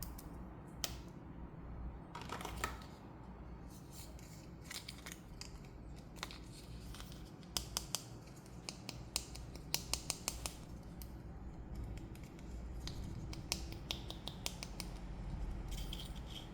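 Scissors snipping through toy packaging in a run of crisp, separate clicks, thickest in the middle, with a short plastic rustle near the start.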